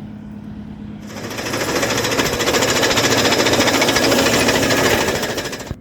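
Loud, rapid mechanical pulsing that swells up over about a second, holds steady, then cuts off abruptly near the end.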